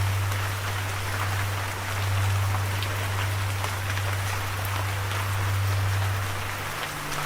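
Steady rain falling, a dense hiss with scattered drop ticks, over a low steady drone that steps up to a higher note near the end.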